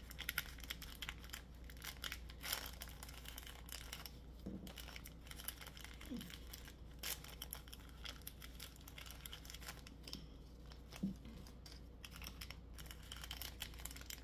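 Plastic candy wrappers of Reese's miniature peanut butter cups crinkling as gloved hands peel them open and pull them off the cups, an irregular run of small crackles and rustles.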